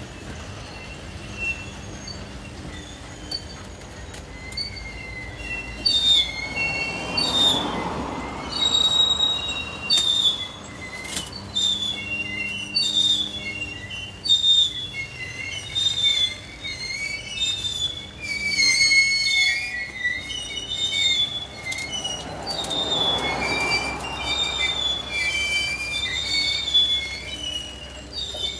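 Covered hopper cars of a freight train rolling slowly past, their steel wheels squealing against the rails in a shifting set of high-pitched tones over a low rumble.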